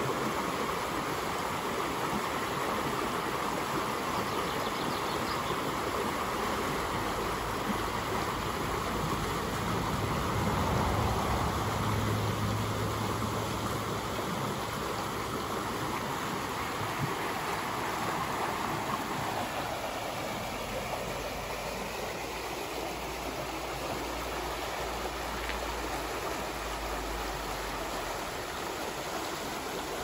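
A small stream rushing over a low concrete weir: a steady hiss of churning water that grows softer in the second half. A low rumble swells and fades around the middle.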